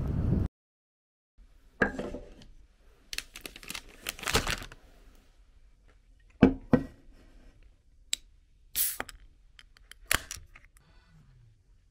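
Close tabletop handling sounds: a paper wrapper rustling, several sharp knocks and clicks of things set down on a wooden table, and a beer can being handled, with a brief hiss about nine seconds in. Street noise cuts off abruptly half a second in, followed by about a second of dead silence.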